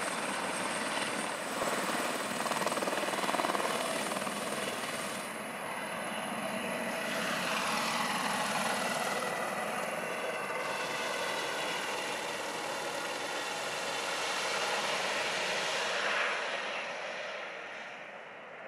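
Airbus Helicopters H130 with its Turbomeca Arriel 2B1 turboshaft engine, its rotor and turbine running at climb power as it flies overhead. It carries a whine that slides lower in pitch as it passes, and fades as it moves away near the end.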